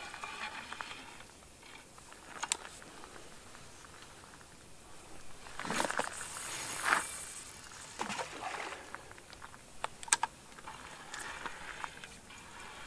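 A feeder rod is cast from a spinning reel. About halfway through, line hisses off the spool for about a second and stops with a sharp snap as it reaches the line clip. Scattered clicks of the reel's bail and handle come before and after.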